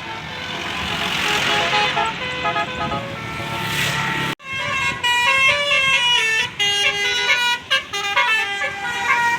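A tour bus's Basuri telolet horn plays a quick melody of short, stepped notes. In the first half a rushing noise runs underneath. The sound cuts out abruptly about four seconds in, and the horn melody starts again right after.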